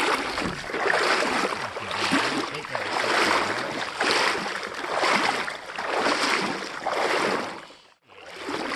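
Water sloshing and splashing in regular swells about once a second, then cutting off abruptly near the end.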